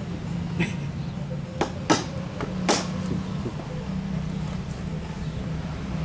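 An engine running steadily with a low hum, with a few sharp knocks over it, the loudest about two and three seconds in.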